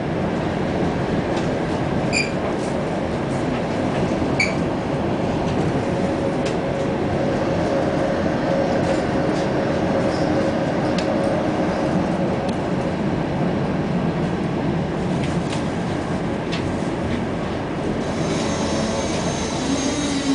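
Tram running on its rails, heard from inside the car: a steady rumble of wheels and running gear, with a steady whine through the middle and two short high pings a couple of seconds apart near the start. Near the end the whine begins to fall as the tram slows for its next stop.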